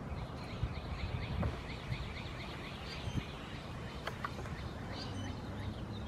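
Outdoor background noise with a steady low rumble and a bird's rapid chirping trill over the first half, plus a few faint clicks from the sensor and anti-seize being handled.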